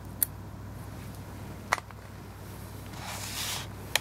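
Small metal parts clicking: two short sharp clicks about a second and a half apart, then a brief soft rustling scrape near the end, followed by another quick click or two, over a steady low hum.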